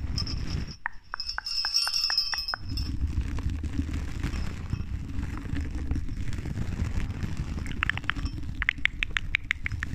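Small jingle bells on a novelty pen clinking and ringing against a microphone with a quick run of about eight ticks, then fingers rubbing on the mic's metal grille, a low muffled rumble. Near the end comes another run of quick taps, about five a second.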